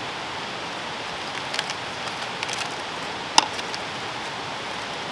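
Aluminium foil packet being unwrapped by hand: a few scattered crinkles and crackles, with one sharp crinkle about three and a half seconds in, over a steady hiss of background noise.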